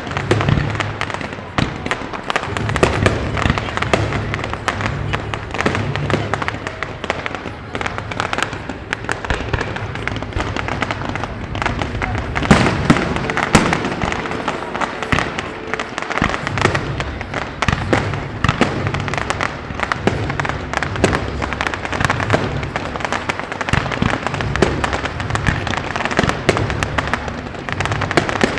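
Fireworks display: many rapid bangs and crackles going off continuously, with music playing alongside.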